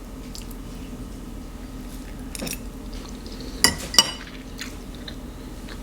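A metal fork against a bowl: a soft tap, then two sharp ringing clinks in quick succession about two-thirds of the way through.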